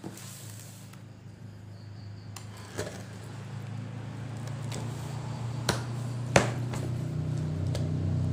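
Scattered clicks and knocks of packaging and parts being handled during unpacking, the two loudest a little over halfway through. Under them runs a low steady hum that grows gradually louder.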